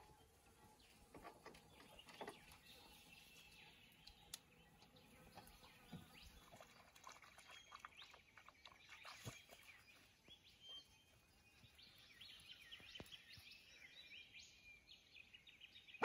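Near silence: faint, distant birdsong, with scattered chirps that are busiest in the second half.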